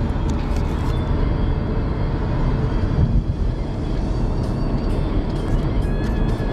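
Steady road and engine rumble of a car heard from inside the cabin while driving.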